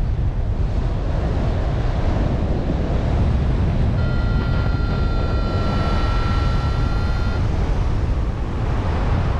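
Heavy wind buffeting the microphone, a steady low rumble. In the middle a steady high tone with overtones holds for about three seconds, then stops.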